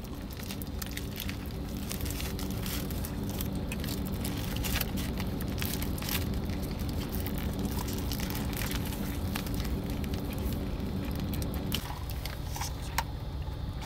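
Close-up chewing of a bite of double burger, with the paper wrapper crinkling and many small wet clicks, over a steady low hum. Near the end, a sip through a straw.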